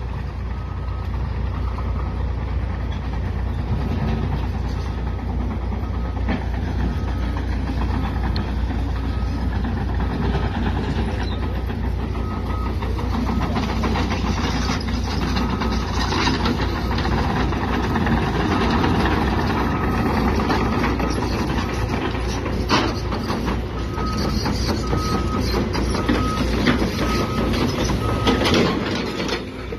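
Caterpillar 315F tracked excavator's diesel engine running steadily as the machine travels on its tracks, with its travel alarm beeping in an evenly spaced series for a stretch near the middle and again near the end. A few sharp metallic knocks from the steel tracks come through.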